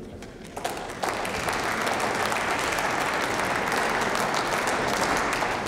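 Members of parliament applauding: a dense, steady clapping that sets in about a second in.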